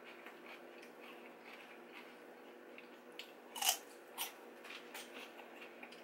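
Raw celery stick bitten and chewed: a loud sharp crunch a little past halfway, a smaller crunch just after, and faint crisp chewing crackles around them.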